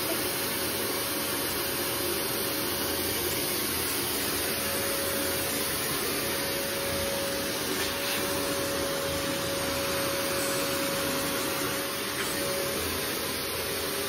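Canister vacuum cleaner running steadily: a constant hiss with a steady whine that grows stronger for several seconds in the middle as the hose nozzle is worked over a velvet sofa.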